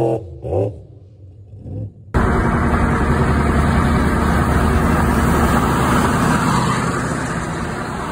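An engine revs briefly and dies away. About two seconds in there is an abrupt cut to steady road and wind noise from a vehicle cruising at highway speed, heard from inside the cab.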